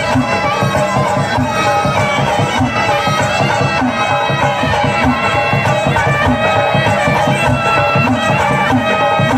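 Loud music played through a DJ sound system: a heavy, steady bass beat under a reedy wind melody in a traditional Indian style.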